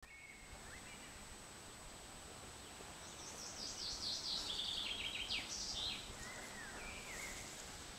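A songbird singing: one fast song of notes that falls in pitch over about two and a half seconds, starting a few seconds in, with a few shorter chirps before and after it, over a steady background hiss.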